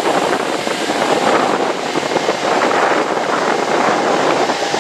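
Wind buffeting the microphone aboard a moving boat: a loud, steady rushing noise, with a faint steady tone running underneath.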